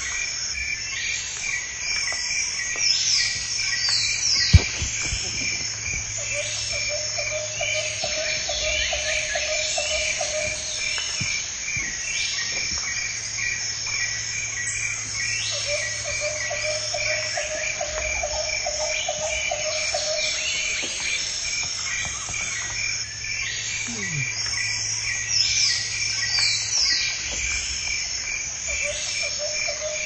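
Jungle night-chorus ambience of insects, frogs and birds. A high chirp pulses steadily throughout, with repeated short descending high calls above it. A lower trilling call lasting about four seconds returns roughly every ten seconds, and there is a single sharp click about four and a half seconds in.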